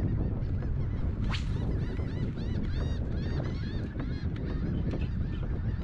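A flock of birds calling over and over, many short arched honking calls overlapping one another, over a steady low rumble of wind on the microphone.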